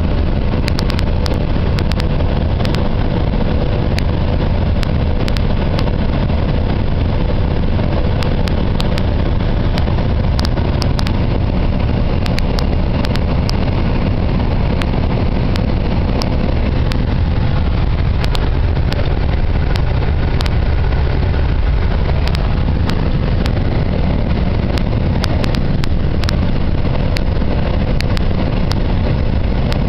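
Steady low rumble of wind and road noise from a vehicle travelling at highway speed, with frequent sharp clicks and crackles on the microphone.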